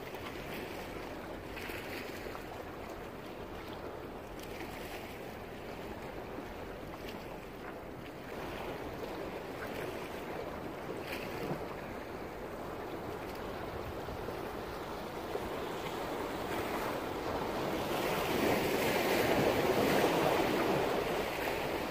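Sea surf washing against the rocks of a jetty, with some wind noise on the microphone. The wash swells louder about three-quarters of the way through.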